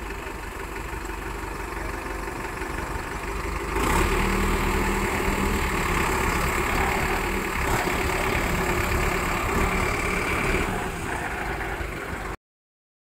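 Preet 6049 tractor's diesel engine working under load as the tractor, bogged down to its axles in mud, tries to pull itself out. The engine gets sharply louder about four seconds in and labours at high throttle, eases a little near the end, then the sound cuts off suddenly.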